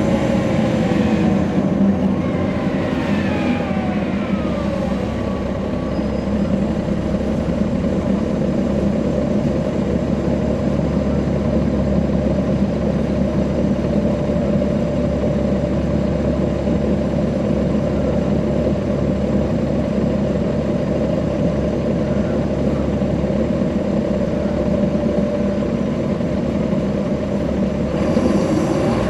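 Inside a NABI 40-SFW transit bus, its Caterpillar C13 ACERT diesel engine and ZF Ecomat six-speed automatic transmission running. A whine falls in pitch over the first few seconds, then the engine drones steadily with a low rumble.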